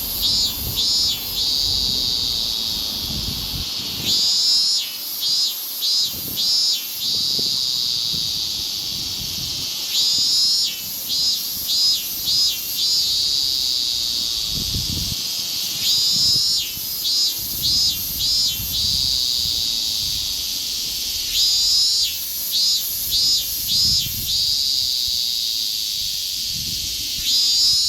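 Higurashi cicadas (Tanna japonensis) calling. Roughly every six seconds a high, rapidly pulsing phrase breaks into a run of about four shorter pulses spaced further apart, over a steady high buzz from other cicadas.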